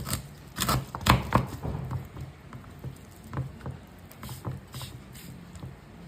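Irregular light taps and clicks of kitchen utensils and containers being handled during food preparation, louder a few times in the first second and a half, then fainter.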